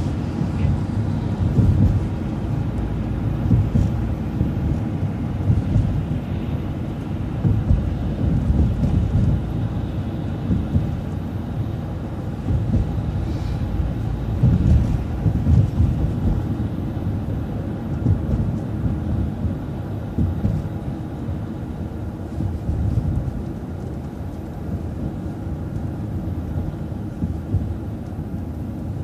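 A city transit bus under way, heard from on board: a low, uneven rumble of engine and road noise.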